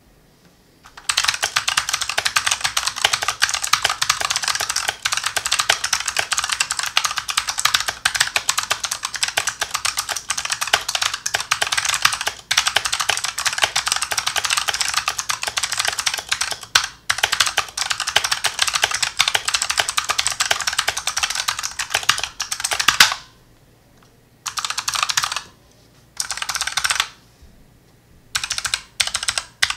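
Typing on a Razer Huntsman Mercury Edition keyboard with its clicky Razer Purple opto-mechanical switches: a fast, continuous stream of key clicks for about twenty seconds, then short bursts of keystrokes with pauses between them.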